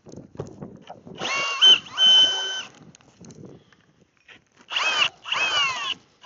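DeWalt DCD996 cordless hammer drill's motor run in four short bursts, each whining up and winding down in pitch, while the drill is set on the K-drill ice auger and not yet drilling.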